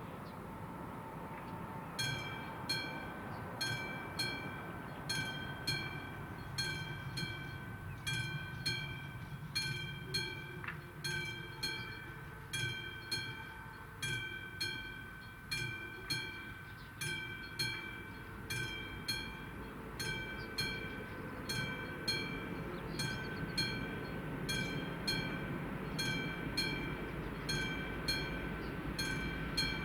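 Level-crossing warning bell of an AŽD 71 crossing starting about two seconds in and striking steadily, about one and a half strikes a second, each strike ringing. A low rumble from the approaching freight train grows toward the end.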